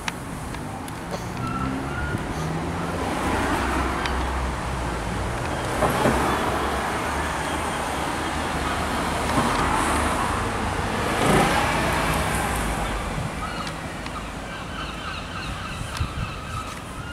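Road traffic: cars passing by, their tyre and engine noise swelling and fading twice.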